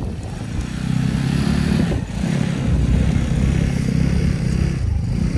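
Small snowmobile engine, the Sharmax SN-280, revving up under load as it pulls on a tow rope, with a brief dip about two seconds in before it runs on at high revs.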